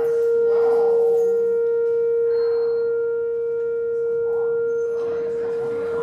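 Outdoor tornado warning siren sounding a steady tone during a routine test, held without rising or falling.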